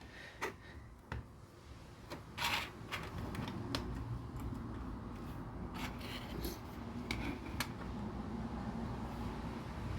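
Plastic LEGO pieces being handled and pressed together, giving scattered sharp clicks and short rattles. A low steady rumble comes in about three seconds in and continues underneath.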